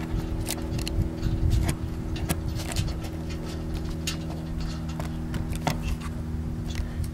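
A utility knife trimming the plastic key slots off a parking-sensor housing: short, irregular scraping and clicking strokes. A steady low machine hum runs underneath.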